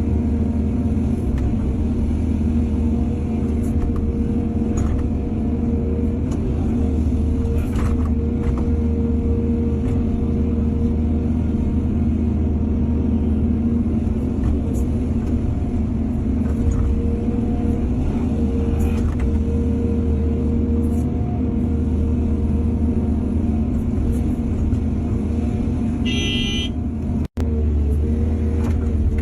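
Heavy diesel engine of an excavator running steadily under load, with scattered light knocks. A short high-pitched beep or horn sounds near the end, and the sound cuts out for an instant just after.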